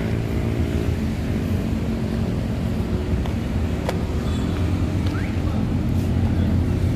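A motor vehicle's engine running steadily, a low hum with an even pitch. A few faint clicks sit on top.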